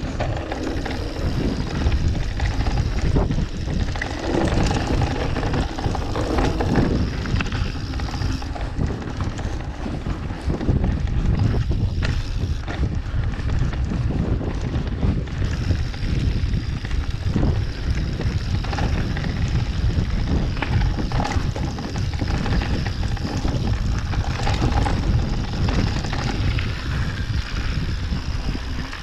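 Mountain bike riding over a dirt trail: wind buffeting the microphone and a low tyre rumble, with frequent knocks and rattles from the bike.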